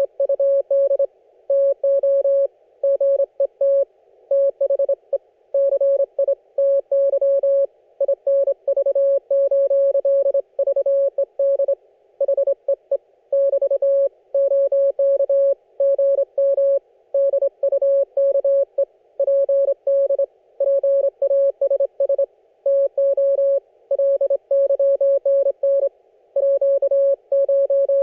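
Morse code (CW) from an Icom IC-718 HF amateur radio transceiver: a single steady mid-pitched beep keyed on and off in dots and dashes, with short gaps between characters and words.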